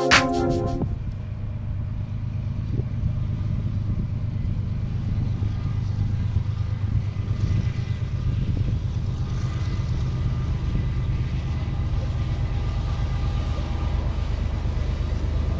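Steady low rumble of a pair of Ferrosur diesel locomotives approaching in the distance, still out of sight. Electronic music cuts off about a second in.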